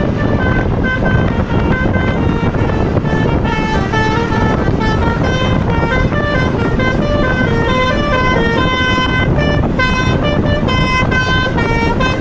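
Bus telolet horn, a Basuri V3 multi-note air horn, playing a long snaking tune of quick stepped notes over a loud, steady low rumble.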